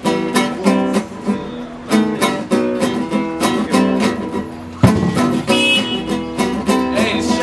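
Nylon-string classical guitar played in a steady rhythmic pattern of plucked and strummed chords. A sharp knock sounds just before five seconds in.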